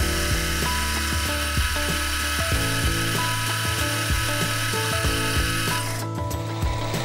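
Metal lathe turning and cutting the centre hole of a brass nut: steady machine hum with a run of irregular sharp clicks from the brass chips breaking off. About six seconds in, the cutting hiss stops abruptly while the hum carries on.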